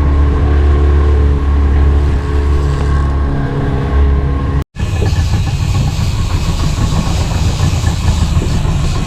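Outboard motor of a panga fishing boat running steadily, with wind and water noise. The sound cuts out abruptly for an instant about halfway through and comes back rougher and noisier.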